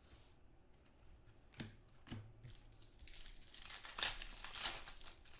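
A trading-card pack's foil wrapper crinkling and tearing as it is handled and opened, after a couple of light taps, with louder crackly bursts in the second half.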